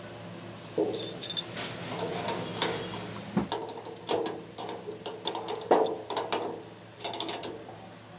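Irregular metallic clinks, clicks and knocks, a few a second, as metal parts are handled and worked, over a faint steady low hum.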